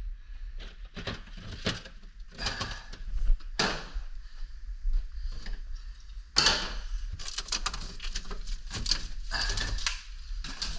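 Irregular knocks, scrapes and rustles of things being handled and cleared out of a refrigerator, with a few louder clatters.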